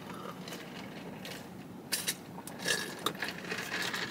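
Drink sipped through a straw from a plastic fast-food cup, with the cup, lid and straw clicking and scraping as they are handled, mostly in the second half.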